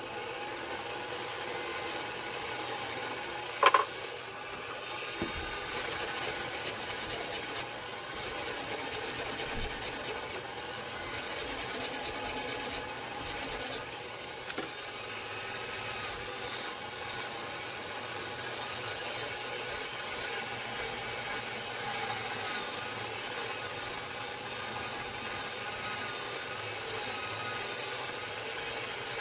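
Layered leather cue tip being trimmed and scraped down with a hand tool, a steady rubbing, rasping scrape, with one sharp knock a few seconds in.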